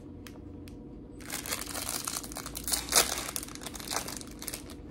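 Snack cake wrapper being crinkled and torn open, starting about a second in, loudest in one sharp crackle about three seconds in.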